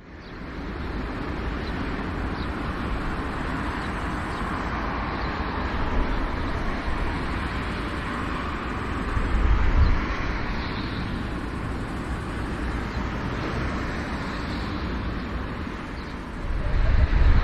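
Airbus A340-300's four CFM56 jet engines running at taxi power: a steady rushing noise over a low rumble, swelling slightly about halfway through and getting louder near the end.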